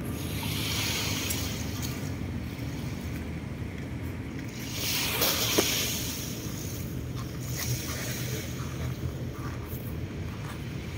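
Bayside beach ambience: a steady low rumble with hissing noise that swells twice, about half a second in and again around five seconds in.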